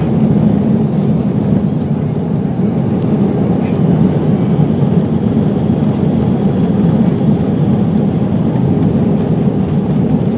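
Steady roar of engine and airflow noise inside the cabin of an Airbus A320 airliner on approach, an even, deep rumble with no changes.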